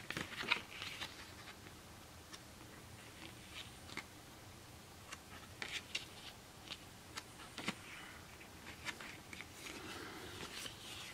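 Faint paper rustles and soft ticks as the pages of a small paperback booklet are flipped and handled, with a longer rustle of a cardboard slipcover being handled near the end.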